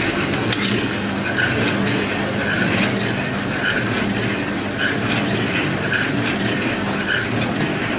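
Motor-driven stirrer of a gas-heated stainless-steel khoya-making pot running steadily, its arm turning through milk being reduced to khoya, with a steady hum and a short higher note repeating about once a second.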